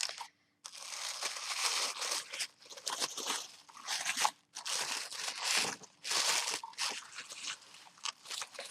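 Packing material crinkling and rustling in irregular bursts as a box is unpacked by hand.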